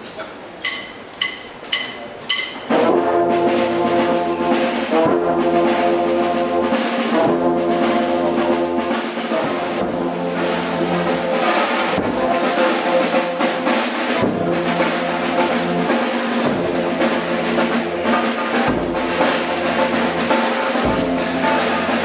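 A brass band with sousaphone and bass drum plays held chords over a low bass line. It comes in about three seconds in, after four evenly spaced count-in clicks.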